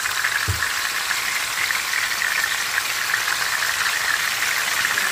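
Pork chops shallow-frying in hot oil in a skillet: a steady sizzle with fine crackling. A short low thump about half a second in.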